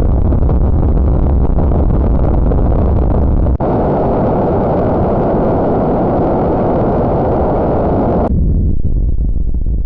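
Loud, harsh distorted noise from a jumpscare sound effect. It switches abruptly to a brighter, fuller noise about three and a half seconds in and cuts back to a duller rumble about eight seconds in.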